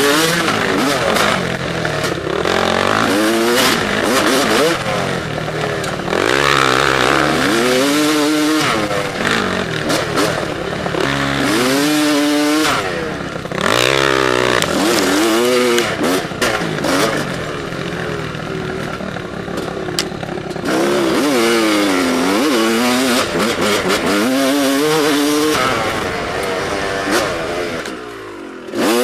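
Yamaha YZ295 two-stroke dirt bike engine (a YZ250 with a 295 cc big-bore cylinder and reed-valve intake) revving up and down again and again as it is ridden hard along a trail. The pitch climbs and falls with each throttle burst, with a brief drop in revs near the end.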